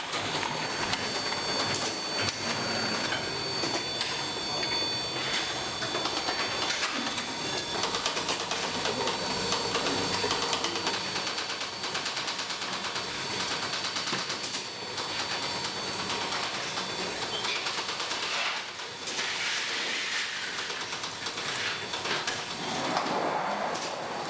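Automated milk bottling machine running, with a steady, rapid mechanical clatter.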